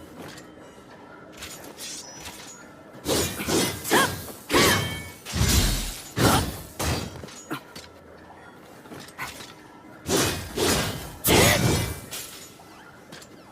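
Ōdachi sword sound effects: a run of sharp, ringing metallic hits and swishes in two clusters a few seconds apart, with a quieter stretch between them.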